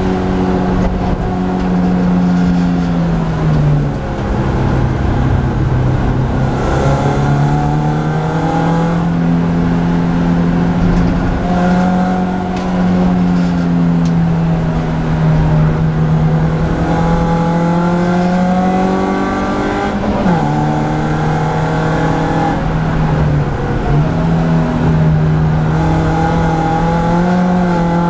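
BMW Compact Cup race car's engine heard from inside the cabin, running hard around the circuit. Its note rises and sags through the lap and drops sharply a few times: once about four seconds in, and again around twenty and twenty-three seconds.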